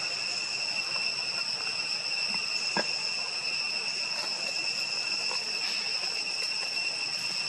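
Steady high-pitched drone of insects, unbroken throughout, with a single faint click about three seconds in.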